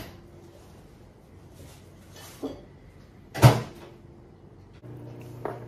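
Kitchen cupboard door knocking shut with a sharp bang, with a lighter click just before it. Near the end a microwave oven starts up with a steady low hum.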